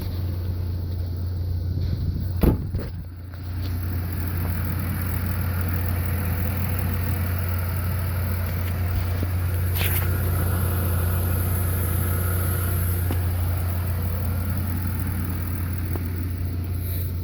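A 2003 Jaguar X-Type's engine running steadily with a constant low hum, with a single sharp click about two and a half seconds in.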